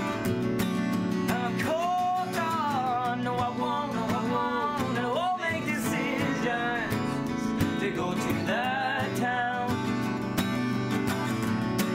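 Two acoustic guitars strummed in a steady rhythm, with men singing drawn-out vocal lines over them in phrases a second or two long.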